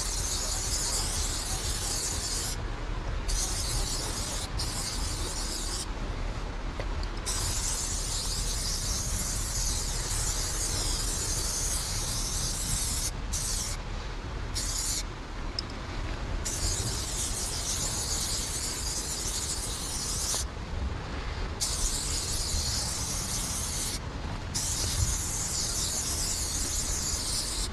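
Aerosol spray paint can hissing in long bursts as a line is sprayed, the hiss stopping for a moment several times where the nozzle is let go, over a steady low rumble.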